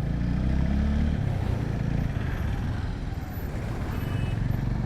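Motorcycle engine running steadily while riding, with a brief faint high tone about four seconds in.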